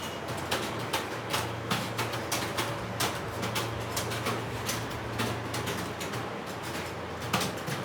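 Many computer keyboards typed on at once: a classroom of students doing a timed typing test, with dense, irregular keystroke clicks over a steady low hum.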